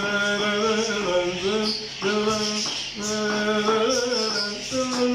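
A man singing, drawing out long held notes, about a second each with short breaks, stepping up and down in pitch between the sung lines.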